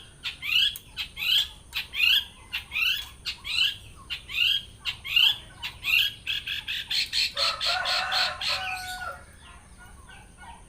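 Long-tailed shrike (cendet) singing: a string of repeated sharp rising notes, a little over one a second, then a quicker run of notes with a denser, harsher chatter from about seven to nine seconds before it quiets. This is the bird pouring out its mimicked repertoire of other birds' calls.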